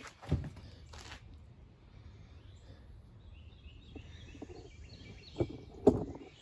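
Quiet outdoor background with faint bird chirps in the second half and a few dull thumps: one just after the start and two close together near the end.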